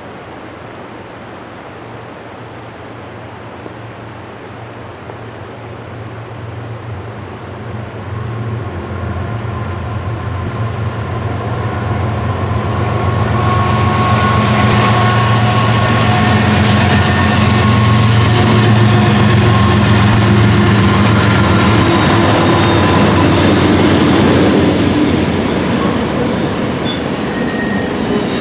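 Diesel freight train led by four CN locomotives (GE ES44DC, C40-8 and C44-9WL and an EMD SD40u) approaching and passing: the low engine drone grows louder, is loudest from about 14 to 25 seconds in as the locomotives go by, then eases as freight cars roll past. High-pitched wheel squeal comes in about 13 seconds in and again near the end.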